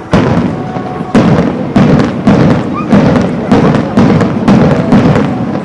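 Aerial fireworks shells bursting in a rapid series, about two loud bangs a second, each followed by a rolling echo.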